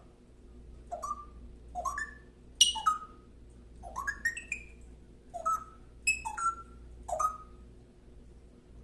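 A pet makes short, squeaky rising calls, about seven in all, roughly one a second, with a couple coming in quick pairs.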